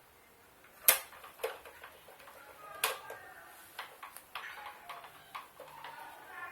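Blender parts and tools being handled during a repair: two sharp knocks about one and three seconds in, then an irregular run of lighter clicks and clinks, some with a brief metallic ring.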